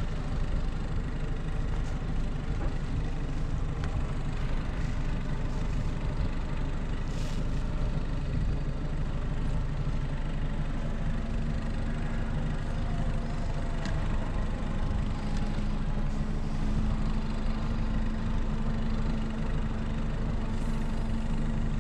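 Boat motor running steadily with a low hum. A higher steady tone joins about halfway through and grows stronger.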